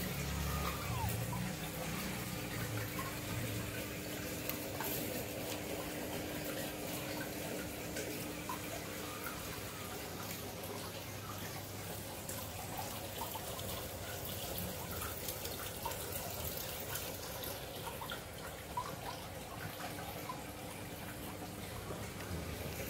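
Aquarium aeration and filter running: steady bubbling and trickling water with a faint low hum under it.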